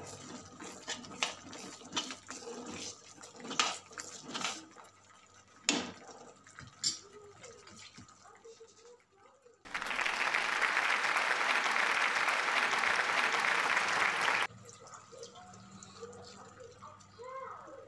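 A spoon scrapes and knocks against a pan being stirred, then a water tap runs hard for about five seconds, starting and stopping abruptly. Wet handling of raw chicken pieces in a bowl follows.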